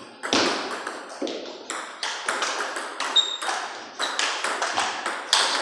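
Table tennis balls being hit with paddles and bouncing on the tables: a quick, irregular run of sharp clicks from two rallies going at once, echoing in the room.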